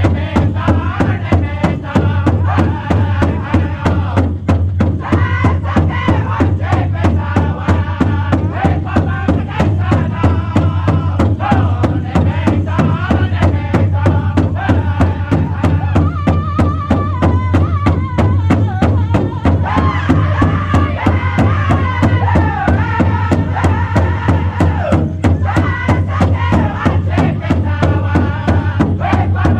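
Powwow drum group singing a chicken dance song in unison over a steady, even beat struck together on one large powwow drum.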